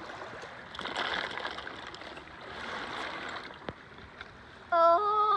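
A bucketful of hermit crabs in their shells poured out into shallow seawater: a splashing, clattering rush of shells into the water, in two surges over about three seconds. Near the end a loud, high call held on a steady pitch cuts in.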